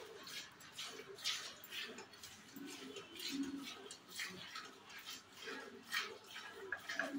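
Hand-milking a cow: milk squirts hissing into a steel bucket already part full, one short squirt after another at about two a second as the hands work the teats in turn.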